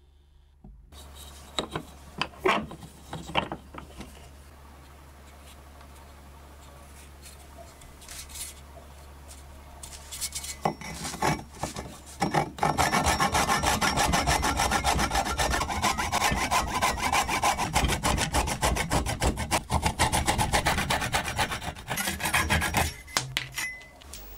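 Hand saw cutting through a round wooden stick clamped in a bench vise, with fast, even back-and-forth strokes for about ten seconds from about halfway in. A few scattered knocks and clicks come before the sawing.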